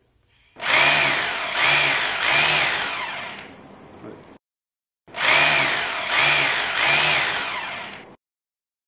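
Corded electric drill boring into a wall in two runs of about three seconds each, each run surging three times, both cutting off suddenly.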